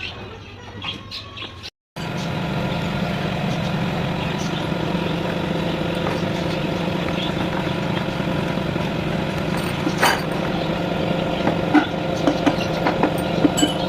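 A machine running with a steady, even hum, with a few sharp clicks near the end. Before it, about two seconds of quieter scattered clicks end in a sudden cut.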